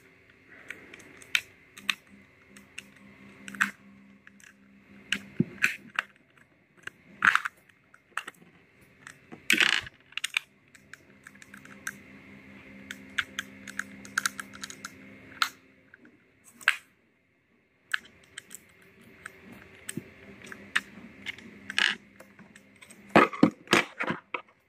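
Irregular clicks and taps of a small screwdriver working on an airsoft pistol's frame, with its small plastic and metal parts being handled. A quick run of taps comes near the end.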